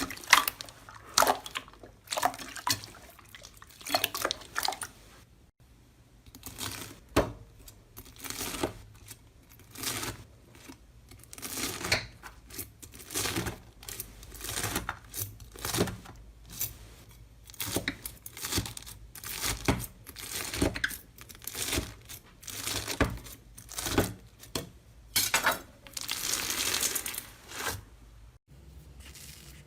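Slime being poked and squeezed by hand. It makes short, wet, sticky crackles about once a second, with one longer crackling stretch near the end.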